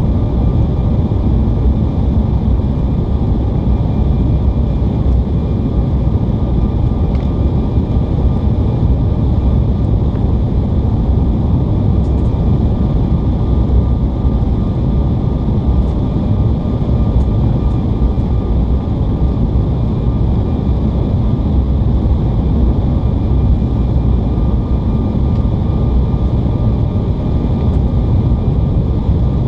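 Steady cabin noise aboard an Embraer E175 jet airliner on approach to land: a low, even rumble of airflow and turbofan engines, with faint steady whining tones above it.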